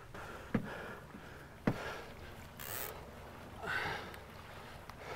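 Two sharp knocks on the boat about a second apart, then a couple of short breaths, over low steady wind and sea noise.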